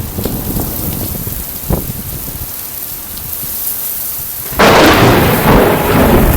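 Summer thunderstorm: steady rain falling, then a sudden loud crash of thunder about four and a half seconds in that keeps rumbling on.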